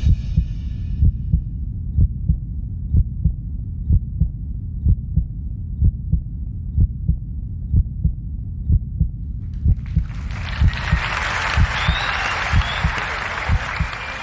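A deep, heartbeat-like electronic pulse, about two thumps a second, used as the show's tension effect during the walk-on. About ten seconds in, a studio audience starts applauding and cheering over it.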